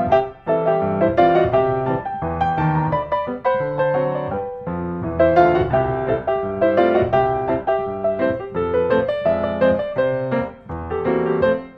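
Background piano music: a steady run of distinct notes throughout.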